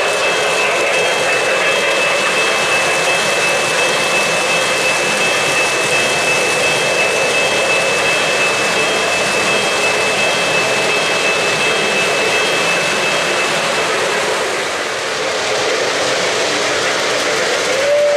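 Three-rail O-gauge model freight train rolling past on the track: a steady rushing rumble of wheels on the rails. A thin high whine runs under it and stops about three-quarters of the way through.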